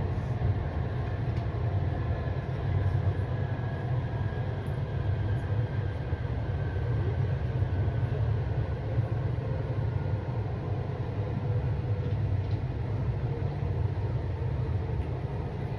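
Inside a PATCO commuter train car running at speed: a steady low rumble of the wheels and car on the track, with faint steady tones above it and no stops or sudden changes.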